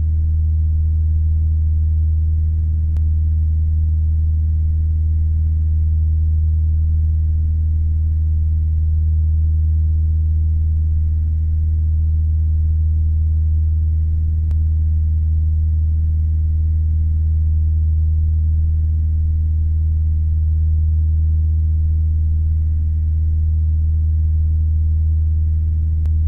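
Steady low drone of a CAP-10 aerobatic trainer's four-cylinder piston engine and propeller heard from inside the cockpit in flight, holding an even pitch and level.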